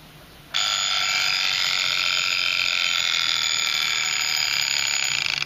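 Vintage Angelus Swiss mechanical alarm clock's alarm going off, a loud, rapid, continuous ringing. It starts suddenly about half a second in and cuts off just before the end.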